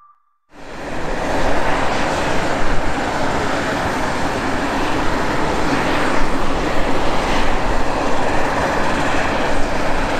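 VL3 Evolution light aircraft's propeller engine on final approach, heard as a steady, even rush of airport noise that begins about half a second in.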